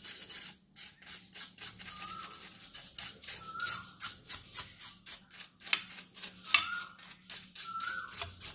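Quick, irregular brushing or scrubbing strokes, about three or four a second, as dust is cleaned off a graphics card's fan. Birds chirp briefly in the background, over a steady low hum.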